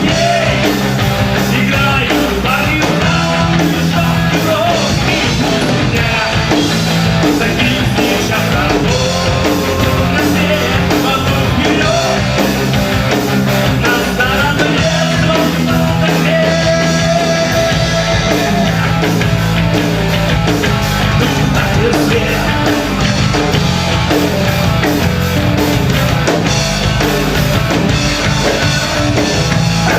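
Live rock band playing a loud, steady song with a singer.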